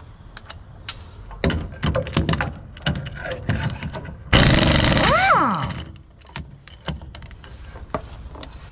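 BULLE pneumatic impact wrench run on a rear suspension bolt for about a second and a half, its pitch rising then dropping as it lets off. Before it come a series of metallic clicks and knocks as the socket and wrench are handled.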